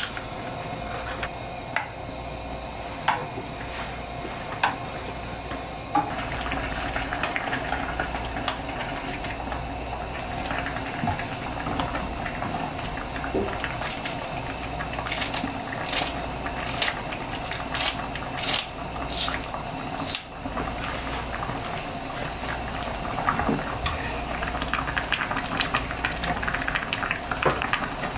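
Ramen broth boiling in a pot with a steady bubbling. About halfway through comes a run of sharp snips as kitchen scissors cut a green onion over the pot.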